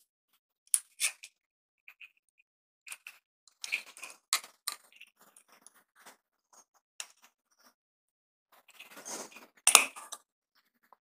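Small screwdriver clicking and scraping on the terminal screws of a plastic two-way light switch as a wire end is fastened: a scatter of small clicks and ticks, with a louder scrape and a sharp click near the end.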